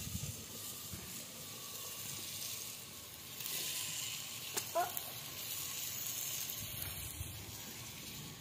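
Chopped luffa gourd pieces frying in hot oil in a clay pot over a wood fire, a steady sizzle that gets a little louder about three and a half seconds in as more pieces go into the pot.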